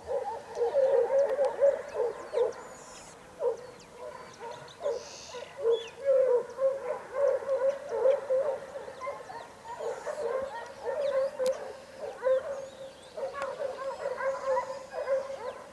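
A pack of hunting dogs giving tongue: quick runs of short, high yelping cries with brief lulls, the cry of hounds trailing a hare on the scent.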